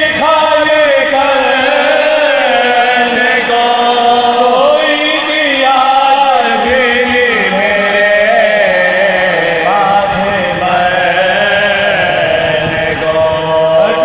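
Soaz, a Shia mourning lament, chanted unaccompanied by male voices into a microphone: one continuous melodic line of long held notes that bend and waver in ornamented glides.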